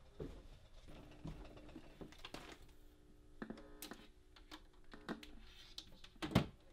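Quiet clicks and taps of hands handling a small stereo and a handheld music player, pressing its buttons, with one sharper, louder click about six seconds in.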